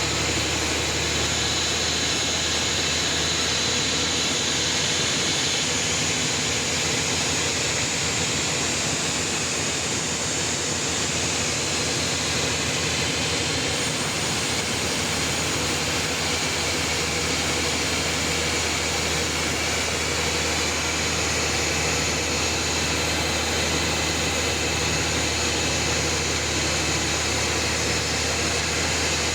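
Sawmill running with a steady, unbroken machine drone and a low hum.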